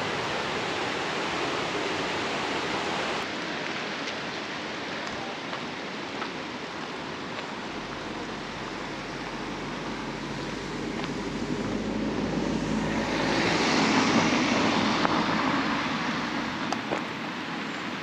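Steady rushing of water, with a vehicle approaching and passing: a low rumble builds from under halfway in, is loudest about three-quarters through, then fades.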